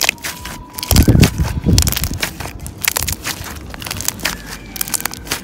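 White crunchy slime packed with foam rings being squeezed and folded by hand, giving a dense run of crunching and crackling pops. There are a couple of heavier low thumps from the handling about a second in.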